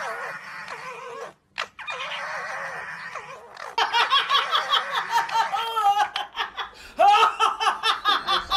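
Two red foxes calling at each other with harsh, high cries, broken by a short gap. From about four seconds in, a woman laughs hard in rapid, even bursts.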